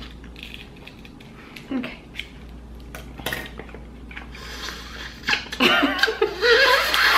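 Eating crab legs: scattered small clicks and cracks of shell being snipped and broken open, with mouth sounds of meat being sucked out. About five and a half seconds in, a woman breaks into laughter.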